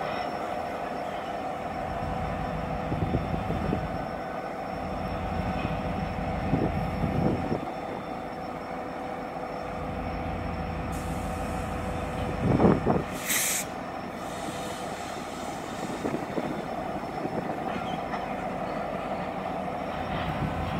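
Two BNSF diesel-electric locomotives running as a slow freight train approaches, a steady engine drone with fixed tones. About two-thirds through comes a loud short rising sound, then a brief sharp hiss.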